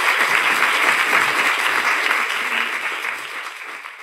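Audience applauding, dense steady clapping that tapers off near the end.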